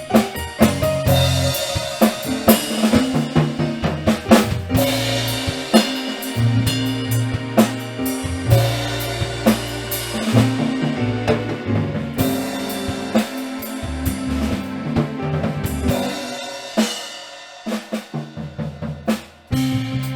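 Band music led by a drum kit with held bass notes. The band thins out briefly near the end, leaving only a few scattered drum hits, before the beat comes back.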